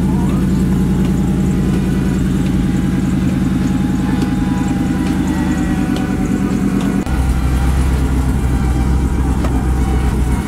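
Pickup truck engine idling steadily with a low, even exhaust note. About seven seconds in the sound shifts suddenly to a deeper tone.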